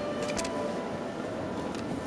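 Background music with long held notes, fairly quiet, with a few short sharp clicks about half a second in.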